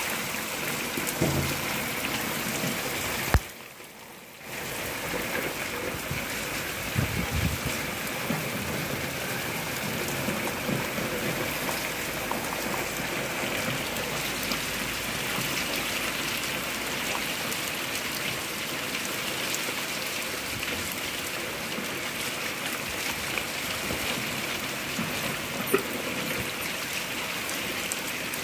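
Heavy rain falling steadily onto a flooded courtyard, a continuous even hiss of rain on standing water. About three and a half seconds in there is a single click and the sound drops away for about a second before the rain returns.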